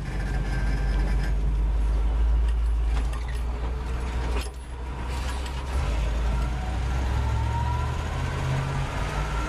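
A 318 V8 truck engine running on wood gas, heard from inside the cab as the truck accelerates, with a steady low drone. There is a brief dip about halfway through, and a rising whine builds over the last few seconds as speed climbs.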